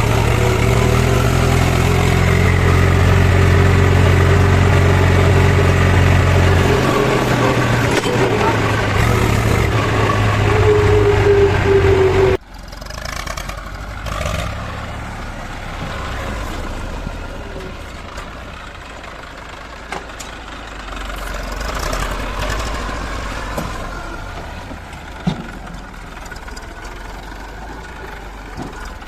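Diesel engine of a JCB backhoe loader running loudly and steadily. About twelve seconds in, the sound cuts off abruptly to a quieter engine running, with a few sharp knocks.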